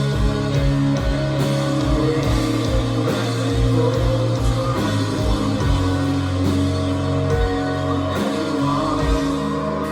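Live rock band playing loud, with singing, electric guitar, bass and a kick drum beat that drops out near the end.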